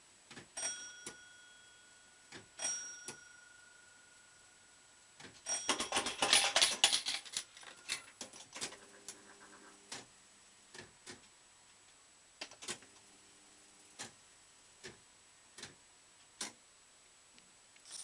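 Bell-Fruit Ten Up fruit machine's mechanism working through a play. It makes sharp clicks, two bell-like rings in the first three seconds, a loud burst of rattling clatter about six to eight seconds in, and two short spells of low buzzing hum. Single clicks follow roughly once a second near the end.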